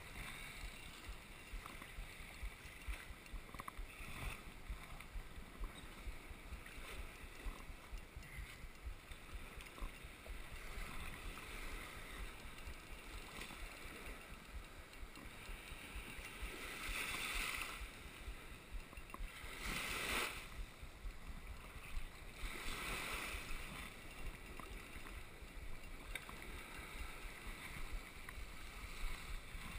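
Small waves washing in the shallows with wind buffeting the microphone; the wash swells louder three times in the second half.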